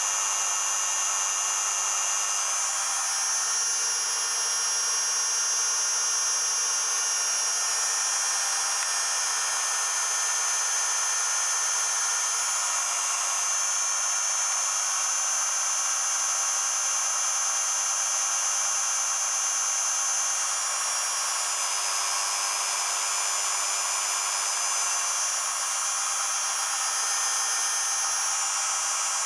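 Steady high-pitched whine of an electric motor spinning the magnet rotor of a regenerative acceleration generator test rig at constant speed, its pitch shifting slightly a few times as the speed drifts.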